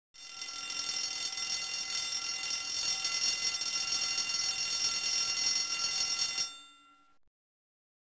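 Alarm clock ringing steadily for about six seconds, then stopping and dying away within a second.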